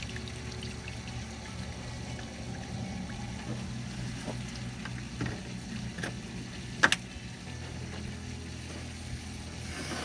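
Coolant being poured into the cooling system of a 6.7 L Cummins diesel while it is being filled and bled, with liquid running and gurgling into the fill neck. A sharp clack about seven seconds in.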